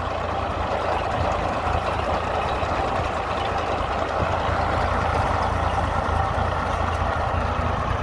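Tractor-drawn Sunking potato digger at work: a tractor engine running steadily under load along with the rattle of the digger's shaking elevator and the soil and potatoes tumbling off it.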